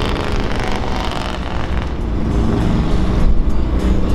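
Engines of cruising motorcycles and cars running at low speed as they pass by, a steady mix of traffic sound.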